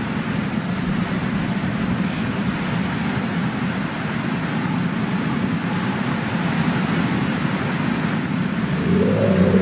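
Steady low rumbling noise with a hiss over it, and a short wavering tone near the end that is the loudest part.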